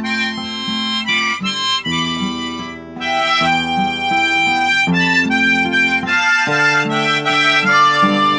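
Harmonica playing a sustained melody over acoustic guitar accompaniment, an instrumental break between the sung verses of a slow ballad.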